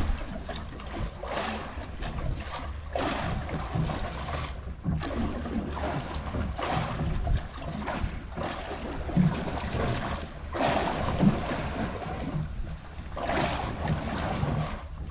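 Sea water slapping and washing against a small boat's hull in swells that come and go every second or two, over a steady low rumble of wind on the microphone.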